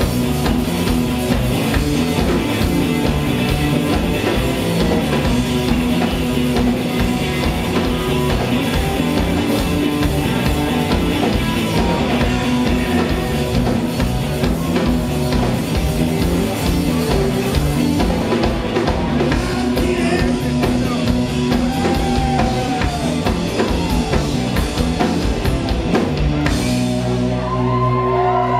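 Live rock band playing loud with a drum kit and electric guitars. About two seconds before the end the drumming stops and a held chord rings on.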